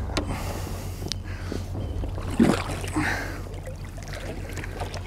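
Wels catfish thrashing and splashing at the water's surface beside a boat, with one sharp, loud splash about two and a half seconds in and a smaller one soon after, over a steady low hum.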